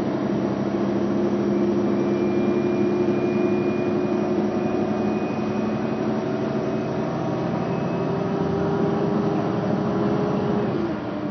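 Mercedes-Benz Citaro city bus heard from inside the passenger saloon, its diesel engine pulling hard with a steady drone whose pitch creeps slowly upward, and a faint high whine above it. Near the end the engine note drops and the sound gets quieter.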